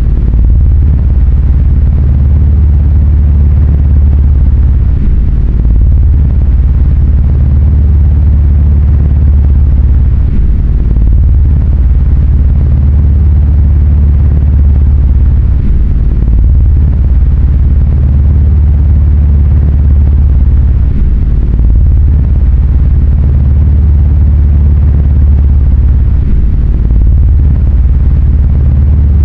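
A loud, steady, deep rumbling drone, with the lowest part swelling and easing every few seconds.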